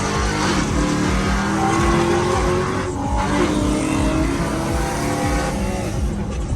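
Car engine running hard under acceleration, a loud pitched drone that slides in pitch with the revs.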